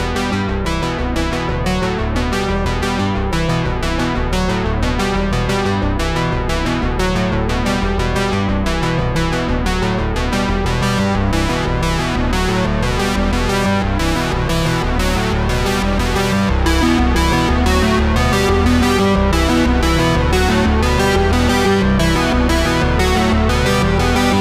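Background music: an electronic keyboard and synthesizer track with a steady beat.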